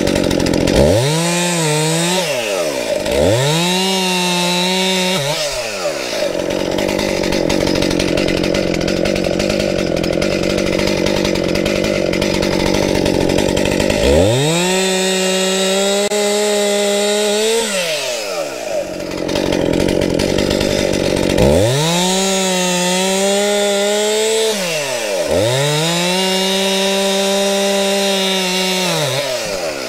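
Gasoline chainsaw revved up to a steady high pitch five times, each run lasting two to four seconds, falling back to a lower, rougher running speed between runs.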